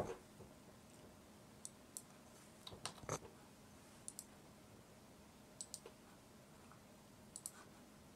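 Computer mouse button clicks: a handful of short, faint clicks, several in quick pairs, scattered over near-silent room tone.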